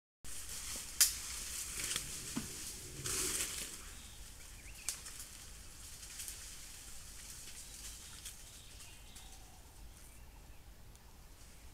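An Asian elephant moving in dry forest vegetation: rustling of dry leaves and brush with several sharp snaps, the loudest crack about a second in. After about four seconds the rustling dies down to faint forest background.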